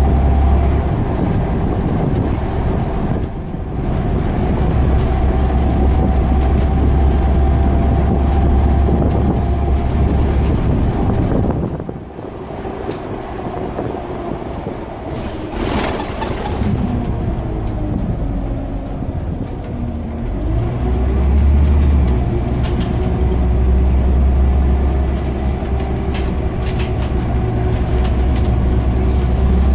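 Scania OmniCity single-deck bus on the move, heard from inside the saloon: a deep diesel engine drone with a steady drivetrain whine. Both ease off about twelve seconds in, a short hiss comes a few seconds later, and the engine pulls strongly again after about twenty-one seconds.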